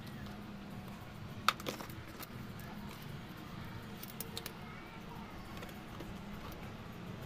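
Hands packing loose coco peat into a clear plastic jar: faint rustling with light clicks of the plastic, one sharper click about a second and a half in and a few small ones a little after the middle, over a steady low hum.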